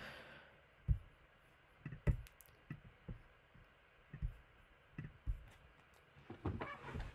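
Faint computer clicks and soft knocks at the desk, scattered about a second apart, with a few more close together near the end, as a text box is selected and dragged with the mouse.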